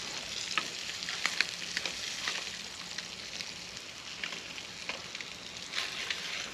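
Blackened mangrove snapper fillets sizzling in hot olive oil in a skillet, a steady hiss with frequent sharp crackles and pops, slowly softening as the fillets are lifted out of the pan.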